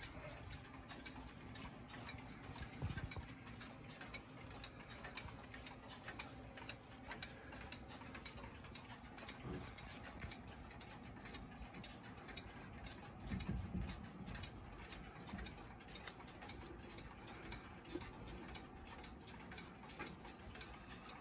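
Howard Miller 613-226 pendulum wall clock ticking steadily and faintly. There are a few soft thumps of handling, and a click near the end as the minute hand is pushed round.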